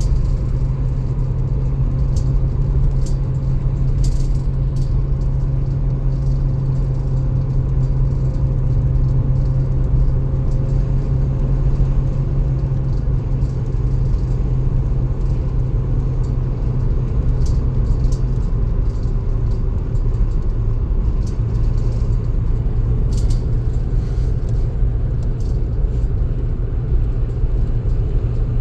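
1987 Holden VL Commodore on the move, its RB30 straight-six running under a steady low rumble of engine and road noise. The pitch shifts slightly about two-thirds of the way through, and there are a few faint light clicks.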